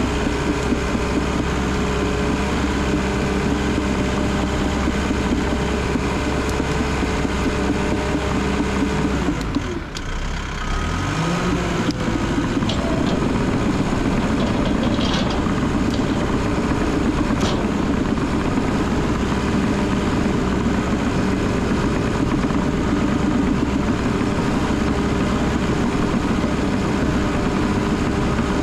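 Cat D3 bulldozer's diesel engine running steadily as the machine works. About ten seconds in, the engine briefly drops in speed and then climbs back up. A few short sharp clicks follow.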